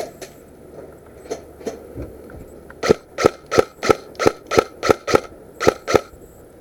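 Airsoft gun firing semi-automatic shots, sharp clicks at a steady pace of about three a second, starting about three seconds in after a couple of fainter clicks.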